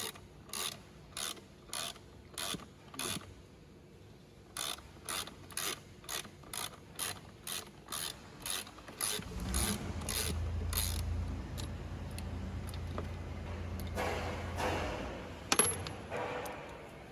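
Hand ratchet wrench clicking at a steady pace, one or two sharp clicks a second, as a bolt is turned. About nine seconds in a low hum starts and runs for about five seconds, followed by a rustling noise and a few more clicks near the end.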